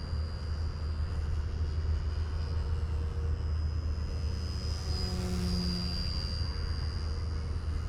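Radio-controlled model aircraft buzzing overhead: a steady low drone with a thin high whine that wavers slightly in pitch.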